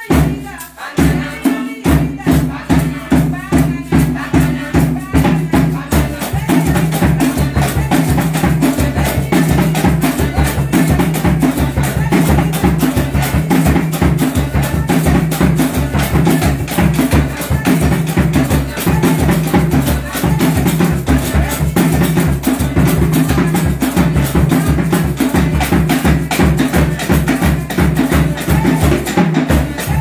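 Drumming and percussion for a dance, in a fast, steady rhythm. Voices are singing at the start, and the drumming starts with sharp separate beats that turn dense and continuous about six seconds in.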